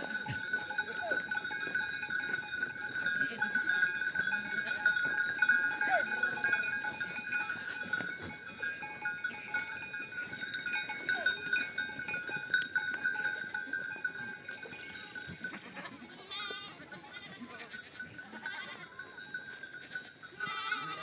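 A herd of goats with bells on their necks, the bells ringing together and now and then an animal calling. The bell sound thins out and gets quieter about two-thirds of the way through.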